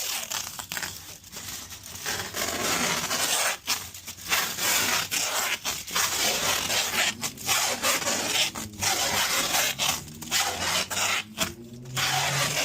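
Tape being pulled off the roll and wrapped around a bundle of cloth, a loud ripping rasp in long pulls with brief pauses between them.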